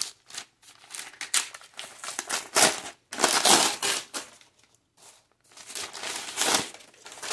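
Brown kraft paper wrapping rustling and crinkling as it is unfolded and pulled off a paperback book, in irregular crackles that are loudest around the middle.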